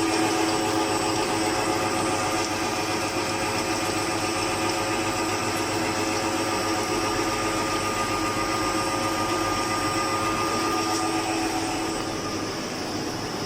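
CNC machine running steadily: a continuous machine hum with several held whining tones over a hiss, easing a little quieter near the end.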